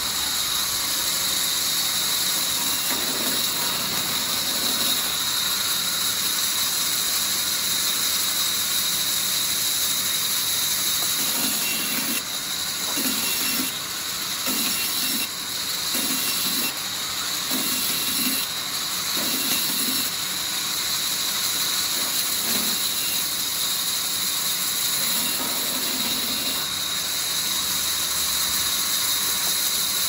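Band saw running and ripping wooden planks into thin strips: a steady high hiss, with a lower rasping sound that comes and goes as the wood is fed through the blade.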